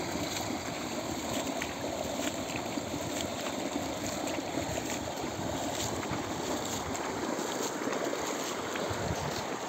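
Irrigation water gushing from an outlet pipe into a concrete tank and spilling out along a field channel: a steady rushing splash.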